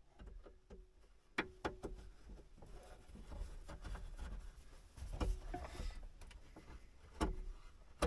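Scattered clicks and light knocks of hands working with wires and connectors behind a car dashboard, several followed by a brief ring, over a faint low rumble.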